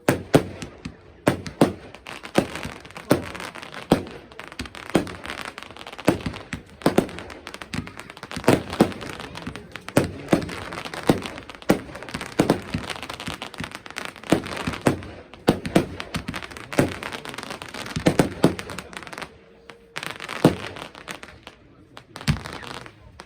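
Fireworks going off in quick succession: sharp bangs about one to two a second over continuous crackling, with a short lull near the end.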